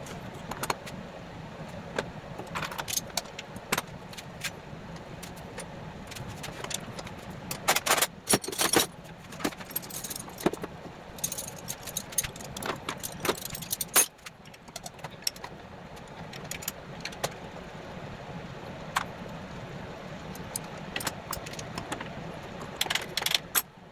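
Metal hand tools and engine parts clinking and clattering in scattered clusters of sharp clicks, over a steady low hum, as a car engine is being dismantled.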